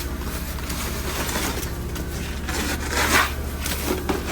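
Steady low hum of running outdoor heat pump units, with a quick fast pulse in it. A short rustling scrape about three seconds in.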